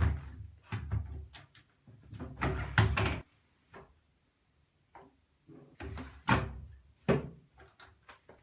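A series of knocks and clunks from a washing machine being handled, several in quick succession, with a near-silent pause in the middle.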